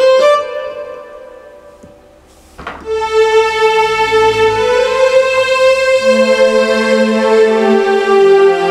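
Yamaha PSR-SX700 arranger keyboard being played. A short phrase of notes at the start dies away, then from about three seconds in a held melody sounds over lower sustained notes.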